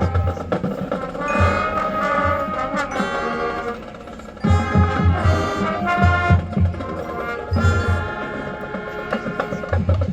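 High school marching band playing its field show: brass holding chords over rhythmic bass drum hits. The band drops to a softer passage about three and a half seconds in, then comes back loud with heavy drum hits a second later.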